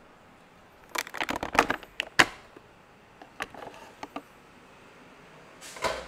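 Plastic clicks and clatter of a capsule coffee machine being handled: a quick run of sharp clicks about a second in, a few lighter clicks a second later, and a louder clack near the end.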